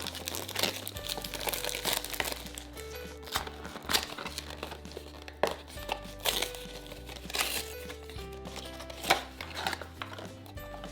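Plastic packaging crinkling and crackling as a blind-bag surprise toy package is torn open and unwrapped, in irregular bursts, over light background music.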